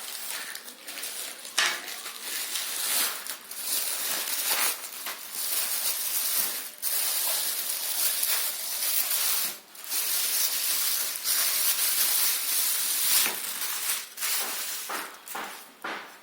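Shoe packaging being handled: continuous rustling and crinkling with many small crackles, pausing briefly a few times.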